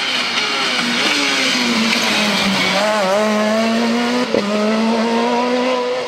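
Peugeot 207 S2000 rally car's naturally aspirated four-cylinder engine running hard at high revs as the car comes past, with a short sharp crack and a break in the engine note a little after four seconds in.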